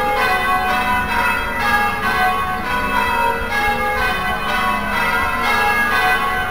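Church bells ringing a peal from the cathedral tower, many bells struck one after another in quick, overlapping succession.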